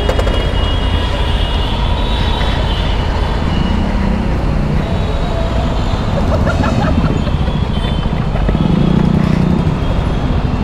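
Triumph Tiger 900 Rally Pro's three-cylinder engine running while riding in slow city traffic, heard from the rider's seat as a loud, steady low rumble, with other traffic around.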